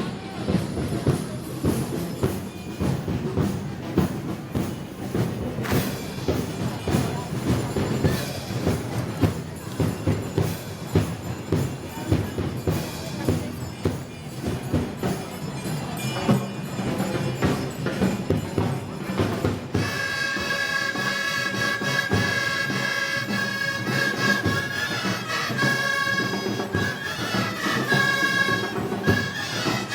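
Moros y Cristianos festival band music: drums and brass with a steady beat, and about twenty seconds in a high wind melody with held notes comes to the front.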